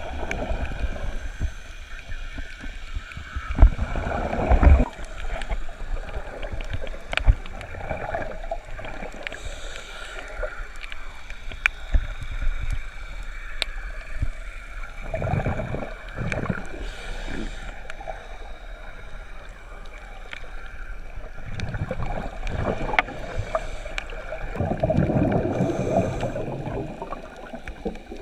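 Underwater sound picked up by a GoPro in its waterproof housing: scuba regulator exhaust bubbles gurgling in irregular bursts a few seconds apart, with scattered sharp clicks over a low rumbling noise.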